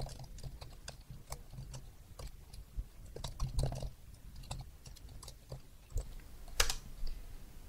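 Typing on a computer keyboard: irregular key clicks, with one louder keystroke about six and a half seconds in.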